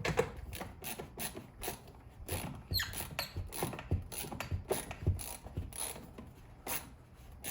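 Hand screwdriver with a bit driving a wall connector mounting screw: a run of irregular sharp clicks, about two to three a second, with a brief rising squeak about three seconds in.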